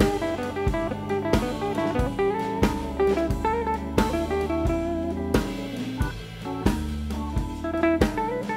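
Background music: guitar notes over a drum kit keeping a steady beat.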